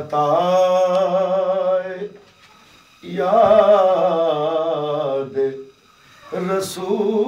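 A man reciting a naat, devotional Urdu praise poetry, sung solo without accompaniment. Three long held phrases with a wavering pitch, broken by short pauses for breath about two seconds in and again near the end.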